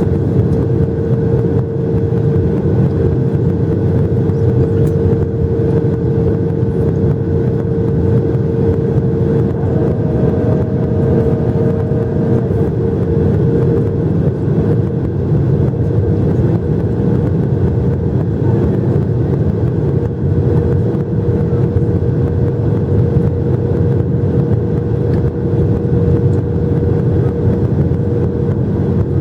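Steady cabin noise of a Boeing 737-800 in flight: the CFM56-7B turbofans and airflow make a constant rush with a steady hum-like tone running through it.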